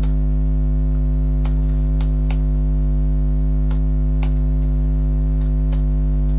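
Loud, steady electrical mains buzz on the recording, the buzzing fault the uploader apologises for. Several light, sharp clicks from handling the camera come at uneven intervals over it.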